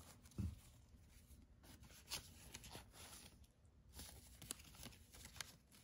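Faint rustling and a few light clicks of paper banknotes being handled and slid into a clear plastic cash envelope.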